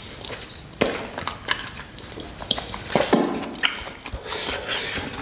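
Close-miked eating of a mutton nalli marrow bone: wet sucking and slurping at the bone, with sharp mouth clicks and smacks, two of them louder, about a second in and about three seconds in.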